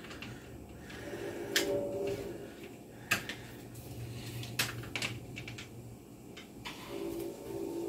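A few sharp clicks and knocks from a box fan's plastic grates and housing being handled, over a quiet room background.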